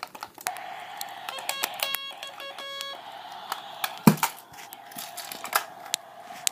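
Nerf Elite toy walkie-talkie giving a quick run of short electronic beeps about a second in, amid plastic clicks of its buttons and casing being handled. A single thump about four seconds in, as the walkie-talkie is knocked or set down.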